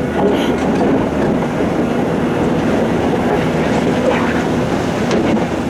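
Heavy diesel earthmoving machinery running steadily under load, with a few faint short knocks late on.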